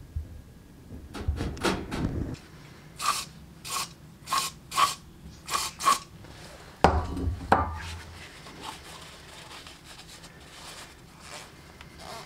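A series of short hisses from an aerosol spray can, about seven in three seconds, sprayed into a clutch slave cylinder, followed by a heavy knock and a second one on a wooden workbench, then quieter handling and rubbing of the metal parts.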